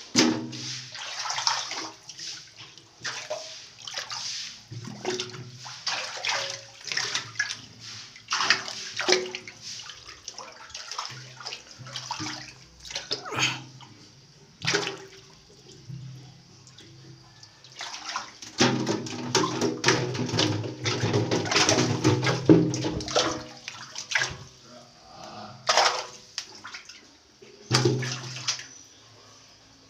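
Hands splashing and scooping through shallow water on a tiled floor while grabbing fish, in irregular splashes, with a longer, louder stretch of sloshing about two-thirds of the way through.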